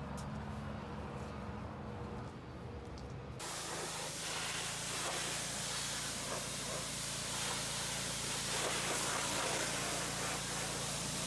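Pressure washer running with a steady low hum; about three seconds in the jet starts, a loud steady hiss of water spraying that holds on.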